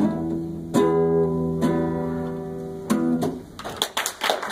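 Acoustic guitar playing the closing chords of a song, each strum left to ring. Near the end the guitar dies away and applause begins.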